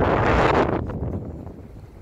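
Wind gusting across the phone's microphone: a loud rush in the first moments that dies away after about a second.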